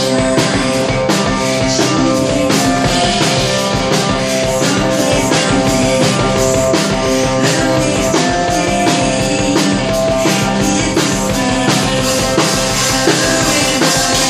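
Live rock band playing an instrumental passage: electric guitar and drum kit with a steady beat over held, sustained tones.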